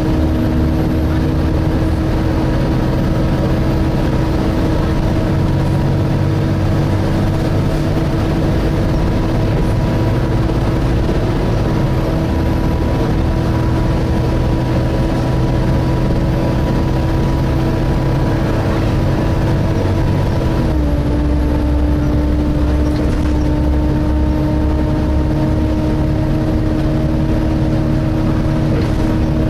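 Volvo B7TL double-decker bus's engine cooling fan whining steadily, the vacuum-cleaner-like 'hoover' whine, heard inside the passenger saloon over engine and road rumble. About two-thirds of the way through the whine drops slightly in pitch while the deep engine rumble grows.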